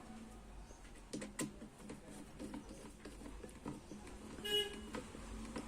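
Small clicks and soft knocks of a screwdriver driving screws into an electric kettle's connector holder, over a faint steady hum. A brief high-pitched tone sounds once, about four and a half seconds in.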